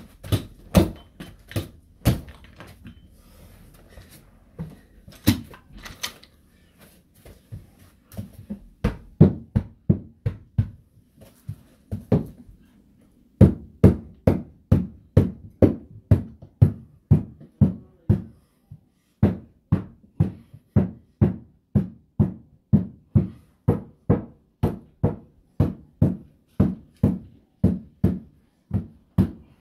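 Mallet blows on the carpet of a stair step as the carpet is fitted: dull thuds, a few scattered ones at first, then a steady run of about two blows a second from about halfway.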